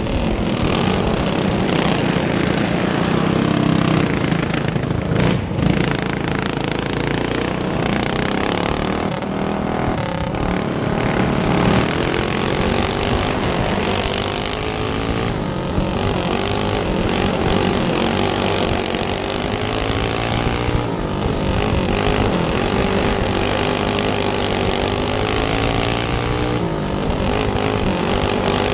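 Onboard sound of a racing go-kart's single-cylinder clone engine under race throttle, its pitch rising and falling again and again as the driver goes on and off the gas through the corners.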